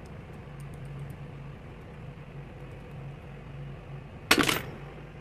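Faint light clicks as a chrome universal-joint socket adapter is worked in gloved hands, over a steady low pulsing hum. About four seconds in comes a single loud, sharp burst of noise lasting about a third of a second.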